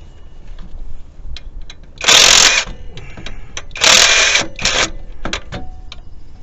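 Cordless impact wrench firing three short bursts, hammering bolts loose on the engine's front accessories, with small clicks of sockets and loose bolts between.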